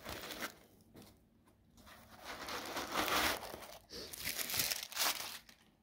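White foam packing insert being rubbed and pulled by hands as a small piece is worked out of its cutout: scratchy rustling in a few separate bursts.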